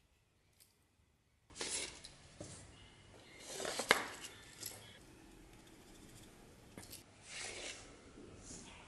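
Leather belt and straps rustling and a steel dagger sliding against its pine-wood scabbard as it is handled and drawn, in several short swells with a sharp click about four seconds in.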